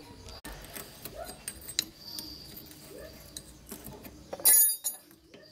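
Hand tools clicking and tapping on metal while working on a motorcycle, scattered small clinks with one louder clatter about four and a half seconds in.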